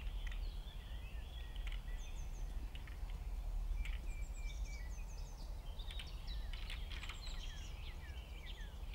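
Small birds chirping, many short falling chirps, over a steady low outdoor rumble, with a few sharp clicks scattered through.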